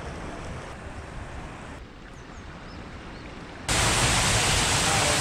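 Low, even outdoor hiss. About three and a half seconds in, it gives way abruptly to a loud, steady rush of water running down the top of a raft water slide.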